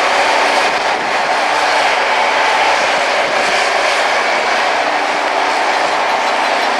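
Rail grinding train at work: a loud, steady grinding rush of its grinding wheels on the railhead, with steady engine tones underneath.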